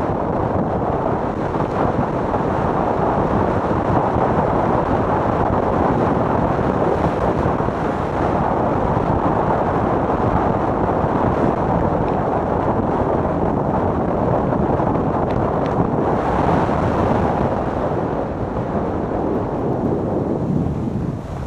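Steady rush of wind buffeting the camera microphone, mixed with a sport luge's runners scraping over the packed snow of a toboggan run at around 75–85 km/h. Slightly quieter near the end as the sled slows.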